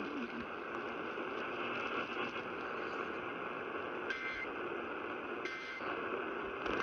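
Steady hiss of radio static, then, starting about four seconds in, three short bursts of two-tone data warble a little over a second apart: the Emergency Alert System end-of-message code that closes the warning.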